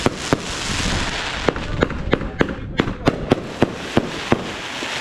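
Fireworks going off: a rapid string of sharp bangs, about three a second, over a continuous crackling hiss.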